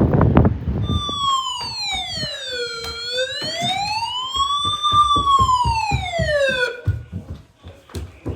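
A siren wailing in one slow sweep: its pitch falls, climbs back up and falls again over about six seconds, then stops. Gusty wind noise on the microphone comes before it, and low thumps run underneath.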